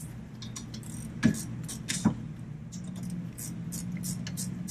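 Metal-on-metal clicking and clinking of a gear wrench working the lower caliper bolt of a rear brake caliper, with two louder metallic knocks about one and two seconds in, over a steady low hum.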